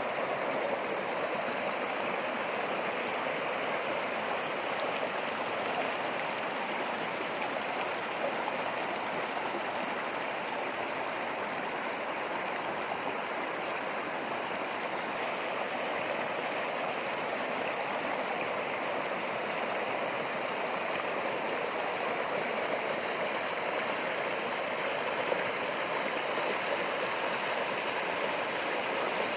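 River water running over rocks in a steady, even rush.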